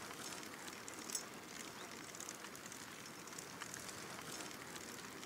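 Two bicycles ridden along a paved lane: a steady hiss of tyre and road noise, with a few faint light clicks and rattles from the bikes.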